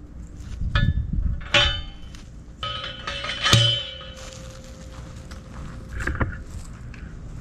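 Metal clanking and clinking from wire fencing and metal posts being handled. There are several sharp metallic strikes, the loudest about three and a half seconds in, each leaving a ringing tone that lingers. Wind rumbles on the microphone throughout.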